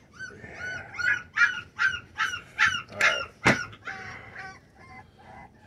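Four-week-old American bully puppies whining and yelping in a quick run of high-pitched cries, about three a second, loudest in the middle and trailing off near the end. A single sharp knock comes about three and a half seconds in.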